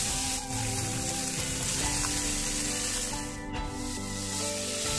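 Barramundi fillets frying in butter in a pan: a steady sizzle that dips briefly about three and a half seconds in, over background music of long held notes.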